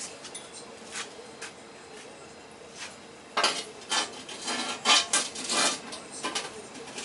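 A few light clicks, then from about three and a half seconds in a run of clattering and rustling as hard objects are handled and moved about.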